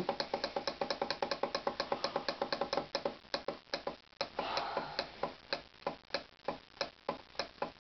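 Digital alarm clock beeping with each press of its time-setting button as the alarm time is stepped forward minute by minute. The short beeps come quickly, about six a second, for the first few seconds, then slow to two or three a second.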